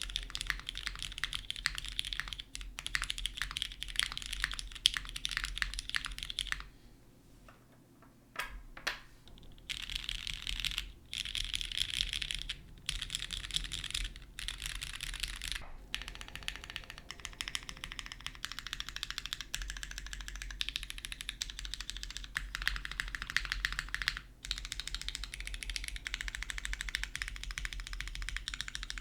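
Keystrokes on a TGR x Singa Unikorn R2.2 custom mechanical keyboard with lubed Cherry MX Hyperglide Black linear switches, an FR4 plate and GMK keycaps: steady typing, then a pause of about a second and a half. After the pause come a few single key presses, then rapid key spamming, then more typing.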